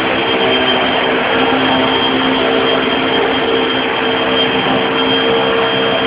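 Vacuum cleaner running steadily on a rug: a constant rush of air with a steady motor whine over it.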